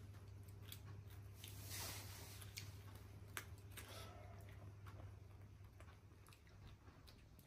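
Near silence: room tone with a steady low hum and a few faint scattered clicks, the clearest about three and a half seconds in.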